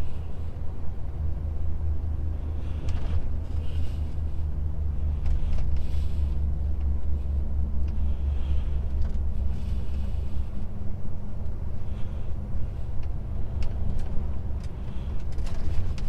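DAF XF truck's diesel engine and road noise heard from inside the cab while driving: a steady low drone, with a few faint clicks near the end.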